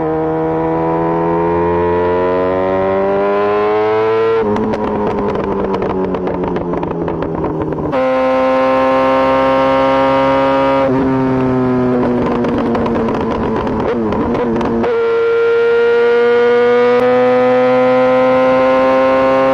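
Yamaha four-cylinder motorcycle engine with its catalytic converter removed, revved up and held at high rpm. Between the revs come stretches of rapid popping and crackling from the exhaust as the throttle closes, the backfire that throws flames from the pipe. The sound changes abruptly several times.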